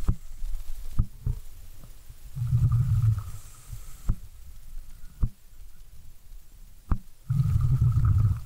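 Scuba diver's regulator exhaust bubbles: a low bubbling rumble about a second long, twice, about five seconds apart, in time with breathing. Several sharp clicks come between the exhalations.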